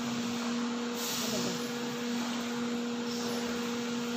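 Steady whirring machine noise with a constant low electrical hum, the sound of an appliance motor running.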